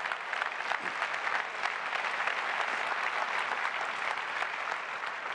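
Large audience applauding, a dense, steady spread of many hands clapping.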